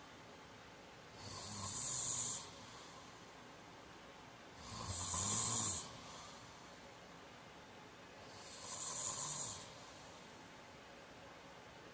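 A man snoring in his sleep: three breathy snores about three and a half seconds apart, each lasting just over a second, with a low rattling rumble under the hiss.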